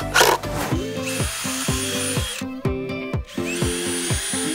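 DeWalt cordless drill boring holes into pine 2x4 boards in two runs, one starting about a second in and a second one near the end, over background music.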